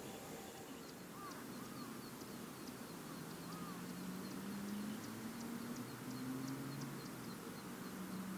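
Low, drawn-out animal calls, several in a row, starting about three seconds in, each rising slightly in pitch, over a faint, even high ticking.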